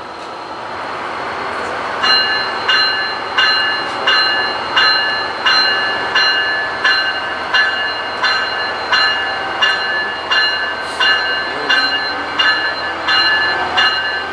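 A train approaching, its rumble building, with a bell ringing steadily from about two seconds in at roughly one and a half strikes a second.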